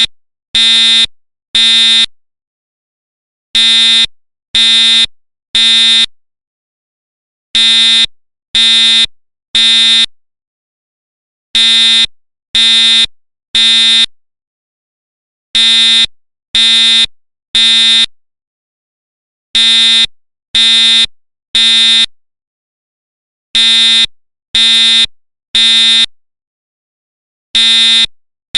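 School fire alarm sounding the temporal-three evacuation pattern: three short beeps of one steady pitch, then a pause, with each group of three starting about every four seconds.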